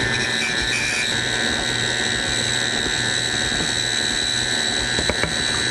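KitchenAid Ultra Power tilt-head stand mixer running steadily with its flat beater creaming cake batter. Its motor and gears give a kind of noisy, constant whine, with a few light clicks near the end.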